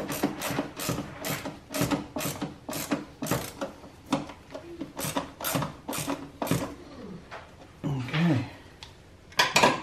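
Ratcheting screwdriver clicking about three times a second while driving a screw into the plastic air filter housing cover, stopping about seven seconds in. A louder clatter comes near the end.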